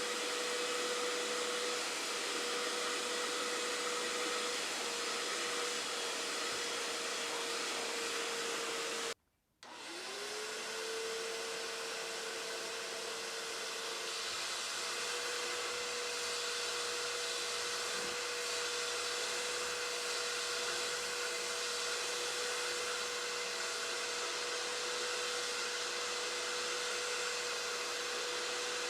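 Bissell SpotClean ProHeat portable wet upholstery cleaner running steadily: a motor whine over a rush of suction. About nine seconds in the sound cuts out for half a second, then the motor's pitch rises back up to speed and holds steady.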